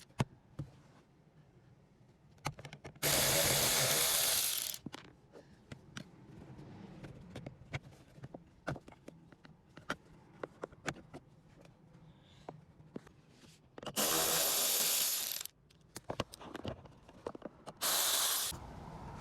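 A power tool running in three short bursts, with clicks and knocks of hand tools and fasteners in between, as the heater fan is taken out from under the dashboard.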